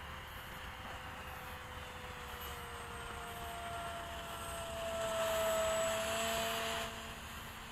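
Electric motor and propeller of a 1400 mm Skysurfer foam RC glider in flight: a steady whine that slowly drops in pitch, grows louder past the middle, then falls away suddenly near the end.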